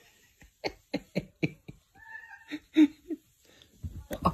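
Domestic cat giving a brief high meow and a few short low chirping calls, among a run of light sharp taps. A louder rustle near the end.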